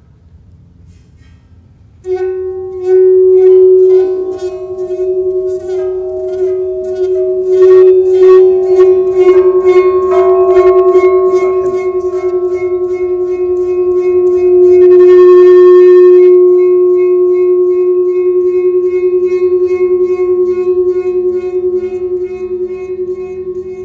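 Large sand-covered metal plate (a Chladni plate) set ringing at its rim, giving one loud, steady tone with higher overtones that come and go, as its vibration drives the sand into nodal patterns. The tone starts about two seconds in and swells briefly near the middle.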